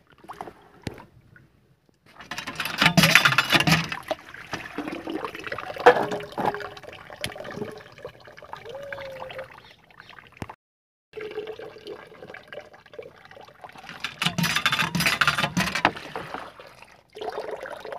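Water splashing and pouring as sliced potatoes are rubbed clean by hand in a plastic tub of water under a running tap. The splashing comes in two louder spells, a few seconds in and again near the end.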